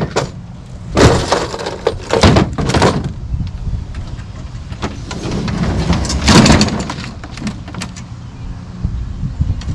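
Lawn mower engine running steadily, with several sudden louder rushes of noise over it.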